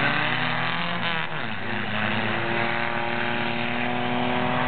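Skid cars' engines running on the track as their metal rear skis scrape the pavement. One engine's pitch drops about a second in, then the engines hold steady.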